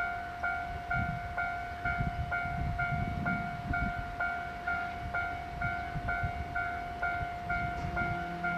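Railway level crossing alarm ringing: an electronic ding repeating evenly about twice a second over a held tone, with low rumble beneath.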